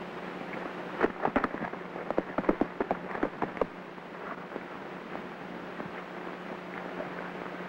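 Horse hoofbeats: a quick, irregular run of sharp clops lasting a few seconds, starting about a second in, over the steady hiss and hum of an old film soundtrack.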